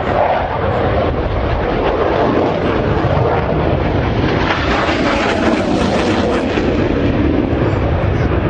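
Jet engine noise from two Blue Angels F/A-18 Hornets flying past in formation: a loud, continuous rushing rumble that grows brighter and fuller about five to six seconds in as they pass, then eases.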